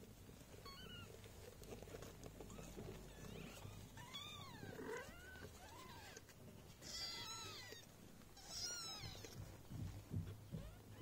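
British Shorthair kitten mewing: a handful of short, high-pitched mews that rise and fall, the loudest about seven and nine seconds in. A few soft low bumps near the end.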